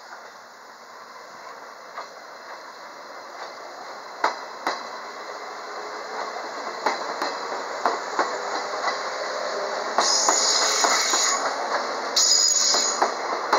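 JR 115 series four-car electric train pulling out and accelerating past: the running noise builds steadily, with the wheels clicking over rail joints more and more often. A harsh high-pitched noise comes in twice near the end.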